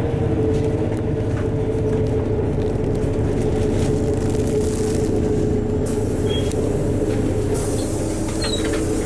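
Inside a LiAZ-4292 city bus under way: steady engine and drivetrain rumble with a whine held at one pitch. Short hisses come about six seconds in and again near the end.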